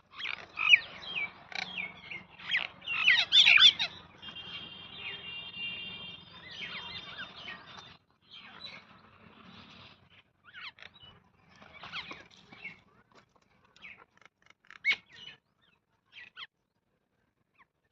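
Small birds chirping and calling in short, sharp notes, busiest in the first few seconds with a longer buzzy call among them, then thinning to scattered chirps with pauses toward the end.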